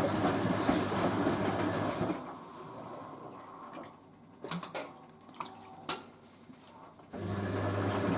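Hoover A3060 washing machine filling with water for its rinse, rushing water with a steady low hum. The flow stops about two seconds in, a few light clicks follow, and the fill starts again about seven seconds in.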